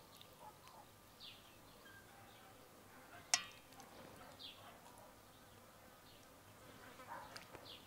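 Quiet garden background with faint short falling bird chirps every few seconds and one sharp click a little over three seconds in, the loudest sound, followed by a few faint clicks near the end.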